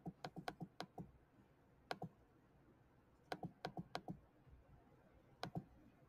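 Computer mouse clicking: about a dozen short, sharp clicks in irregular clusters, as keys on an on-screen calculator emulator are pressed, with quiet room tone between.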